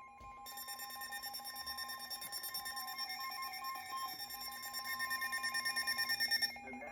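Emergency alert tones ahead of a weather radio flash flood warning: a steady warning-alarm tone with a fast-pulsing electronic alarm beeping over it, growing louder, both stopping about six seconds in.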